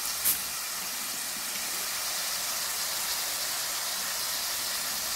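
Shrimp frying in margarine in a wok: a steady sizzling hiss while Sprite soda is poured into the hot pan. A single short click comes just after the start.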